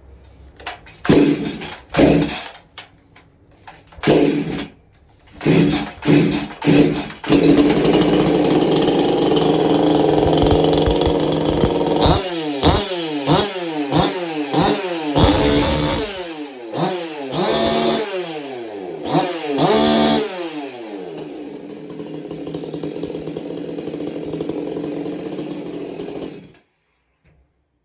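A hot-rodded 50cc Husqvarna 346 two-stroke chainsaw is pull-started, firing in a few short bursts before it catches, then runs at high revs. It is blipped repeatedly, each rev falling away, settles to a lower run and is shut off near the end.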